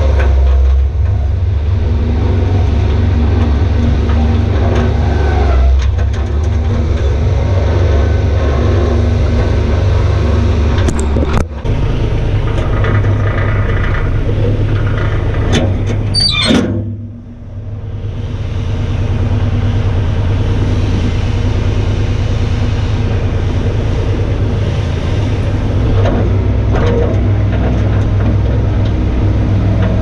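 Bobcat 463 skid-steer loader's diesel engine running steadily under load while it pushes and grades dirt. A little past halfway the sound dips briefly, then picks up again with a slightly different tone.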